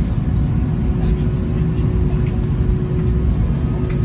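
Steady low rumble inside the cabin of an Airbus A330 airliner during pushback and taxi, with a thin steady hum over it.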